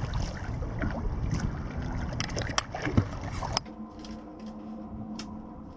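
Water noise aboard a small sailboat under way, with wind on the microphone and several sharp clicks and knocks. About two-thirds through, it cuts abruptly to a quieter stretch with a faint steady hum and a few clicks.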